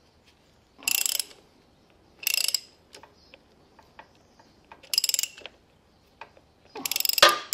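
Socket ratchet clicking in four short runs as it is swung back between strokes, with a few single ticks between. It is turning the bolt of a motorcycle chain breaker tool to press a rivet out of the chain.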